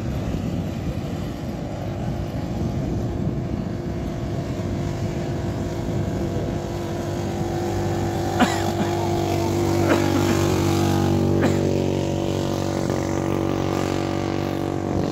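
Small quad bike (ATV) engine running as it drives past on the sand, growing louder about halfway through and staying prominent for several seconds over a steady background of noise. A few short sharp clicks are heard while it is close.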